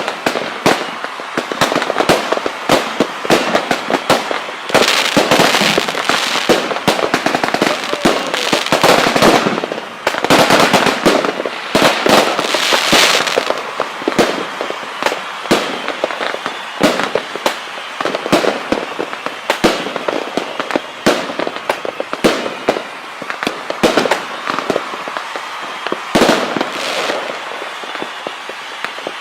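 Fireworks going off in rapid, irregular cracks and pops, thickening several times into dense runs of crackling.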